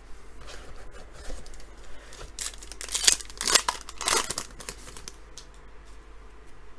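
Foil wrapper of a 2018 Panini Prizm football hobby pack crinkling and being torn open by hand. The loudest tearing comes in a burst of rustles in the middle, with quieter handling before and after.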